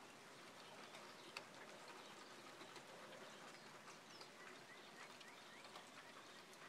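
Near silence: faint room tone with a few light ticks and some faint, brief high chirps.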